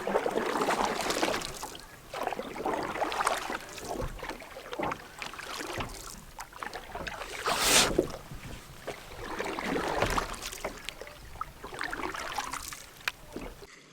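Water splashing and sloshing beside a small fishing boat. It rises and falls irregularly, with small knocks, and has one sharper splash about eight seconds in.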